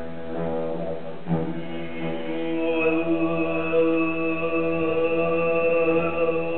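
Didgeridoo drone with a man's steady droning chant at a microphone over it. From about two and a half seconds in, a high whistle-like tone is held steady above the drone.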